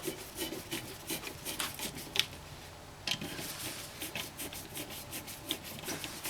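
Light, irregular metallic clicks and scraping from hand tools and parts being worked at a car's rear wheel hub, with a short lull about two and a half seconds in.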